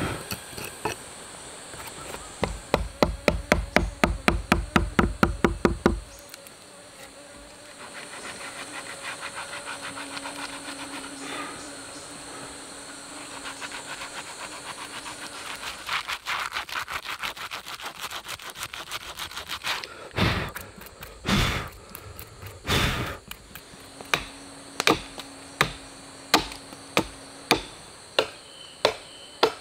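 Hand tool striking wood: a quick run of loud strokes about five a second, then three heavy blows about twenty seconds in, then steady chopping at about two strokes a second.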